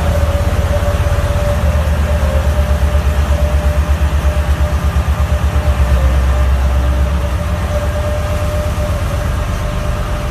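The diesel engines of a BelAZ 75710 ultra-class mining dump truck running with a deep, heavy rumble. The rumble pulses about five times a second for a few seconds in the middle, under a steady higher whine.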